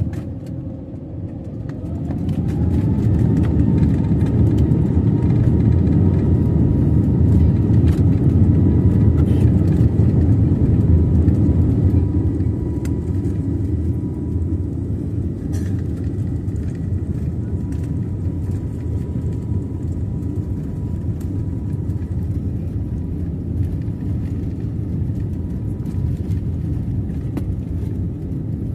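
Airbus A321neo's Pratt & Whitney PW1100G geared turbofans spooling up to take-off thrust, a rising whine that settles into a steady tone. Under it runs a heavy rumble of the take-off roll, which eases somewhat about twelve seconds in.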